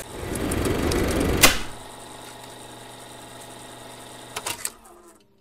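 Logo-intro sound effect: a rising swell that ends in a sharp hit about a second and a half in, then a steady electronic drone with faint clicking that fades out near the end.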